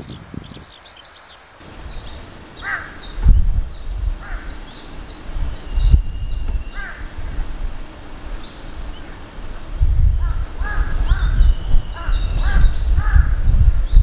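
Malayan night heron giving a series of short, crow-like calls, most densely from about ten seconds in, over rapid high chirping of smaller birds or insects and a low rumble.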